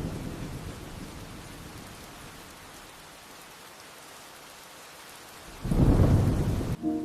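Steady rain with thunder: a low rumble fading over the first second or two, then a second loud rumble near the end that cuts off abruptly.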